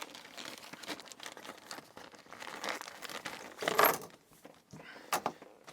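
Small plastic packaging bags crinkling and rustling as a package of lockpicking tools is unpacked, with a few light clicks.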